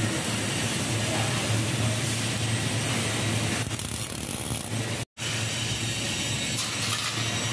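MIG welding arc tack-welding twisted square steel bars onto a steel grating: a steady sizzling hiss over a low hum, cut off for an instant about five seconds in.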